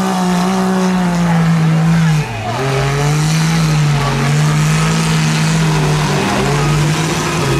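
Off-road race vehicle's engine held at high revs as it drives through a water-filled mud bog; the pitch drops briefly a couple of seconds in, then climbs back and stays high.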